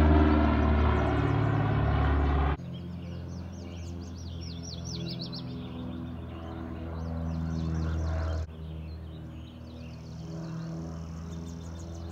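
Piper PA-23 Aztec's twin piston engines loud overhead for the first two and a half seconds, cut off suddenly. Then songbirds chirping over a steady low drone.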